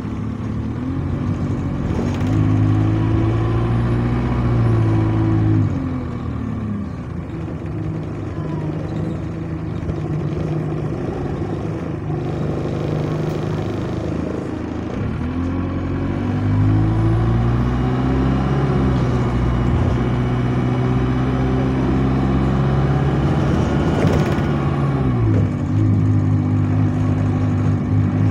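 Diesel engine of an Alexander Dennis Enviro200 single-deck bus, heard from inside the cabin, accelerating twice: it climbs over the first few seconds and eases off, then climbs again for a longer run about halfway through and drops back near the end. A faint high whistle rises and falls with the throttle, which the title puts down to a turbo air leak.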